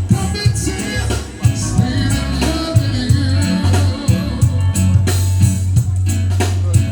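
Reggae music with a singing voice over a heavy bass line and a regular beat.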